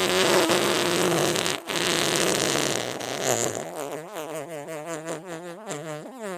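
Fart sound effects: a loud, raspy fart that breaks off briefly about a second and a half in and carries on, then a long, wavering, fluttering fart that rises in pitch near the end.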